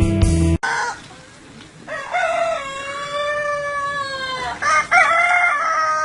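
Music cuts off about half a second in, then an animal gives a short call and two long drawn-out calls of two to three seconds each, each sliding slightly down in pitch at the end.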